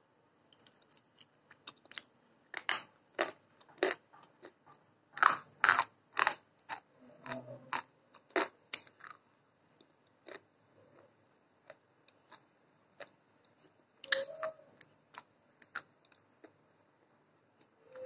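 Slate pencil pieces being chewed and crunched between the teeth close to the microphone: irregular sharp crunches and clicks, with a busy spell about a third of the way in and another about three quarters in.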